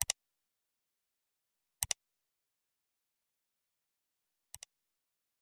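Computer mouse-click sound effect: three double clicks (press and release), one at the start, one just under two seconds in, and a quieter one about four and a half seconds in.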